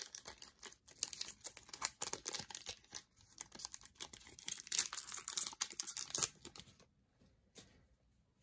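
Foil Pokémon booster pack wrapper being torn open and crinkled by hand, a dense crackling rustle that stops near the end.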